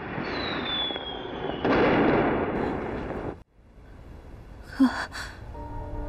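Fireworks crackling and bursting, with a whistle falling in pitch near the start and a louder burst of crackle about two seconds in; the sound cuts off abruptly about three and a half seconds in. A woman's short gasp follows, and soft music begins near the end.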